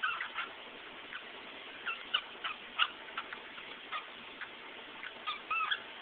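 Cockatiel giving short, soft chirps and clicks at irregular intervals, with a longer, wavering chirp near the end.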